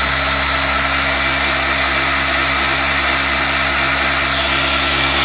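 Electric orbital sander running steadily, mounted by its pad on a bucket of cleaning solution so its vibration shakes the bucket and the parts inside: a constant motor hum with a high whine.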